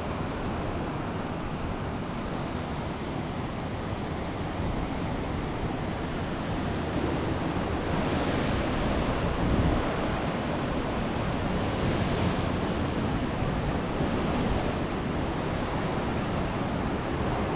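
Hurricane-force wind blowing hard and steadily, swelling in gusts a few times.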